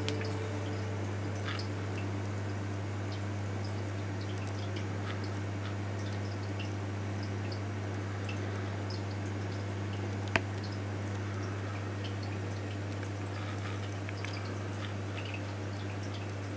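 Marine reef aquarium running: a steady low hum under water trickling and dripping, with many small scattered ticks and pops and one sharp click about ten seconds in.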